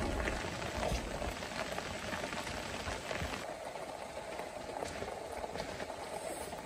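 Steady bubbling and patter with scattered small ticks: a pot of mille-feuille nabe simmering on a camp burner, with rain falling on the shelter overhead.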